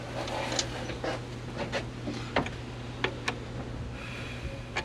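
Scattered sharp clicks and light knocks, about half a dozen of them, over a steady low hum.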